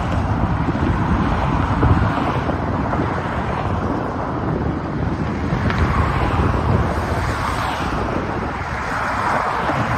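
Wind buffeting the phone's microphone, over a steady rush of road traffic.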